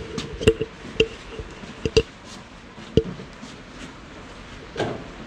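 Joints cracking during a chiropractic spinal adjustment: a series of sharp pops roughly a second apart.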